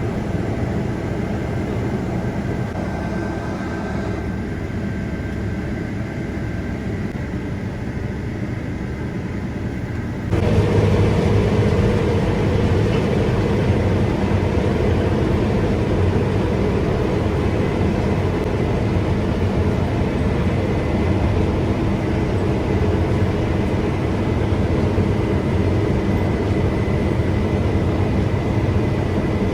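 Combine harvester running steadily as rice harvesting begins; about ten seconds in the sound changes abruptly and becomes louder, with a steady low hum.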